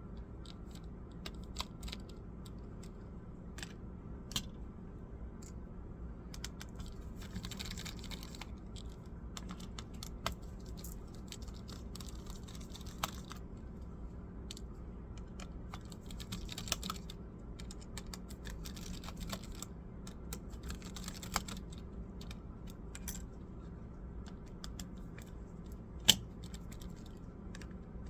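Scattered light clicks and taps from hands working on a Dell laptop's parts, with a few short stretches of scraping and one sharp click near the end, over a steady low hum.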